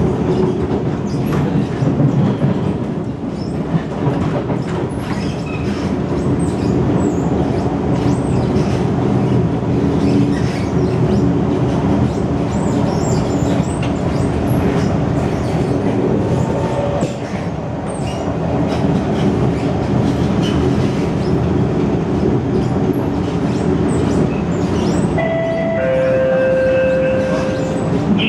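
MRT train running, heard from inside the carriage: a steady rumble with wheel-on-rail clatter. Near the end two steady tones sound, the second lower than the first.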